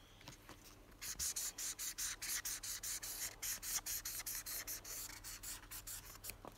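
Felt-tip marker scribbling on paper in quick back-and-forth strokes, about five or six a second, starting about a second in.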